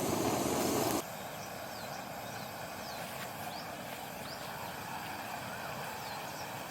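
Lakeside dawn ambience with small birds giving short, high chirps every second or so, and one softer gliding call about two-thirds of the way through. It starts under a louder steady noise that cuts off abruptly about a second in.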